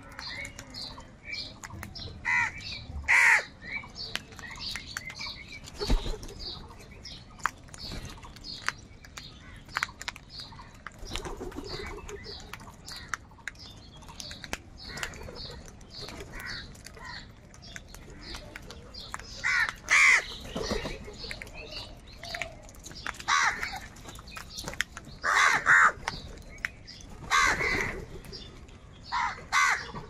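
A flock of house crows feeding together, cawing harshly in short bunches, mostly in the second half, over a steady patter of faint high chirps. Wings flap now and then as they jostle over the food.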